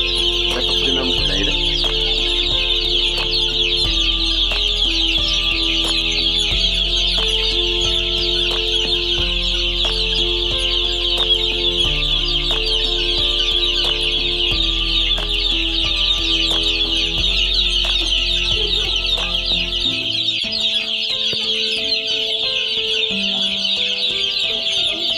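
A crowd of day-old chicks peeping constantly in a dense high chorus. Under it runs background music of sustained chords with a deep bass that drops out near the end.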